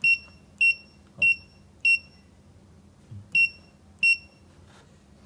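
Six short, identical high electronic beeps from the key panel of a crimp pull-force tester, one for each button press, coming at uneven intervals of about half a second to a second and a half.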